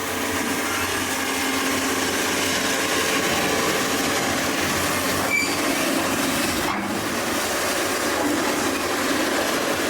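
A heavy vehicle or machine running, a steady mechanical rumble and rattle with a few faint held tones through it.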